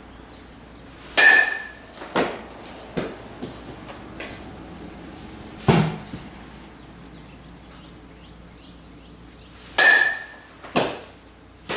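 A metal baseball bat strikes a ball twice, about a second in and again near the end, each hit a sharp ping with a brief ring. Lighter knocks and thuds follow each hit, and there is a duller thud around the middle.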